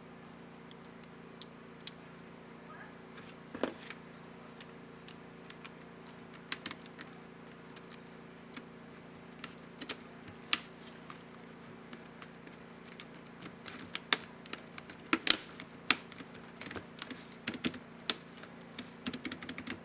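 Asus X550C laptop keyboard keys clicking as they are pressed, a few scattered keystrokes at first and then quicker runs of typing from about two-thirds of the way in, over a faint steady hum.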